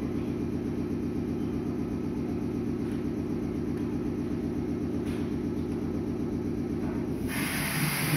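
Steady low hum of a Meitetsu 6500 series electric train standing at the platform with its onboard equipment running. About seven seconds in, a loud hiss starts suddenly.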